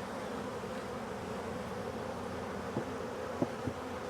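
A swarm of honey bees buzzing steadily around an open hive, with a few light knocks about three seconds in.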